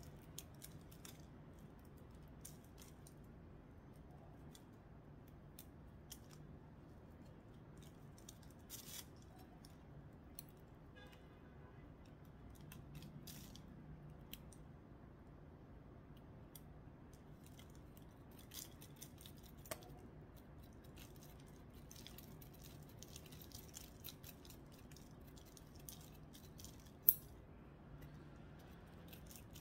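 Faint, scattered snips and clicks of small scissors being worked at the stems and roots of a succulent being repotted, with light rustling between them and one sharper click near the end.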